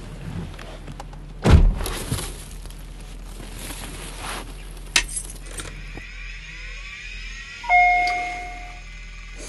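A car door thumps shut about a second and a half in, followed by rustling and small knocks. Near the end a single dashboard warning chime sounds, two tones together fading over about a second: the low-fuel warning, with the gauge on empty and the fuel light lit.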